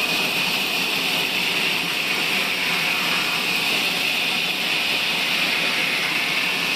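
Sawmill saw running, a loud, steady hissing whine that holds level without any change.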